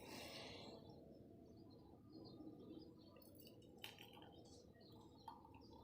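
Near silence: room tone with two faint light clicks, one a little under four seconds in and one near the end.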